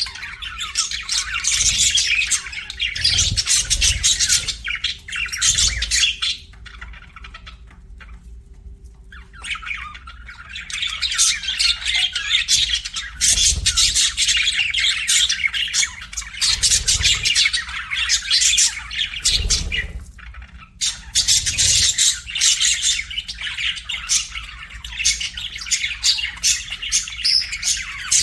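Budgerigar chirping and chattering in a rapid, high twitter. It falls quieter for a few seconds about a quarter of the way through, then resumes.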